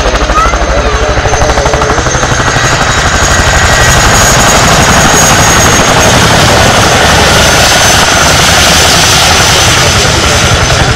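Boeing CH-47 Chinook helicopter at close range, its tandem rotors beating in a rapid, steady pulse over a high steady whine from its twin turboshaft engines, as it hovers low and settles onto its wheels. It is very loud throughout and grows a little louder a few seconds in.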